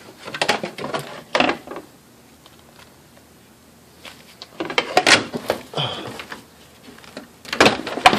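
Scattered clicks and knocks of hand-tool work on the underside of a car, as bolts come out of the plastic splash shield under the engine. The sounds come in two clusters with a short quiet spell between them.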